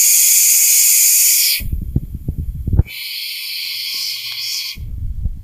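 Loud, steady high-pitched buzzing of a forest insect chorus, cut off abruptly about a second and a half in by low rumbling handling noise with a few knocks. The buzzing comes back about a second later with a faint steady tone under it, then drops out again near the end into low rumble.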